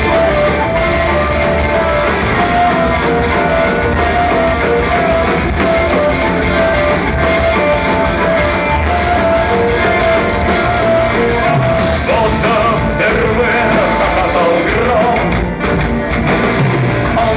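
Live rock band playing an instrumental break, with a lead line of long held notes over bass and drums.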